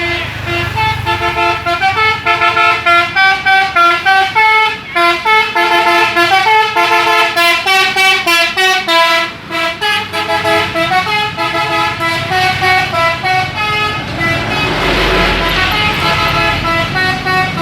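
Indonesian telolet bus horn playing a fast melody of short stepped notes, about three a second, going on for many seconds. Near the end a deep engine rumble and rushing noise swell up under it.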